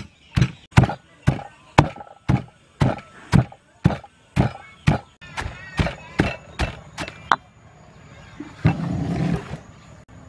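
Stone pestle pounding chilies, garlic and herbs into a paste in a heavy stone mortar: dull, evenly spaced thuds about two a second that stop about seven seconds in. A second of louder rough noise follows near the end.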